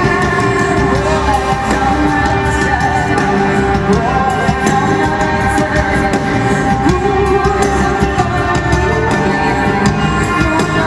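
Live concert recording of a rock song: a woman singing over sustained instrumental backing, playing steadily throughout.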